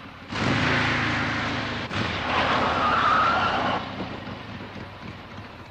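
Sound effect of a motorcycle with a sidecar pulling up and skidding to a stop: engine noise with a tyre squeal about three seconds in, then dying away.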